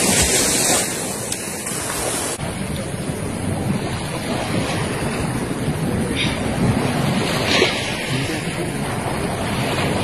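Surf washing on a sandy beach, a steady noisy rush with wind buffeting the microphone, and a couple of brief bumps in the second half.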